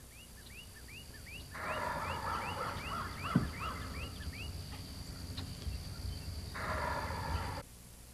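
Turkey gobbling: two rattling gobbles, one starting about a second and a half in and a shorter one near the end, over a run of short rising peeps repeating about three times a second in the first half. The sound cuts off abruptly shortly before the end.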